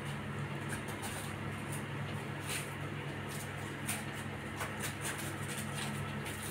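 Room tone: a steady low hum with faint, scattered light clicks and taps.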